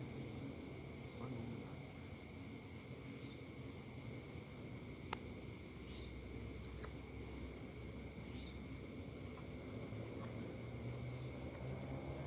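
Forest insects at night, buzzing steadily at two high pitches, with a short trill of four quick pulses heard twice. A low hum runs underneath, and there is a single sharp click about five seconds in.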